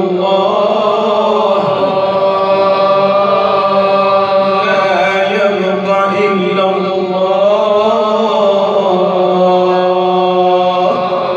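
Devotional Sufi chanting (inshad): long held notes that bend slowly, over a steady low drone, with no clear words.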